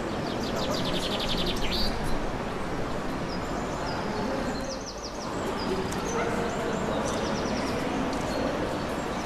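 Small songbirds chirping over a steady rushing noise. A rapid trill comes in the first two seconds, ending on a rising note, and then short high chirps repeat through the rest.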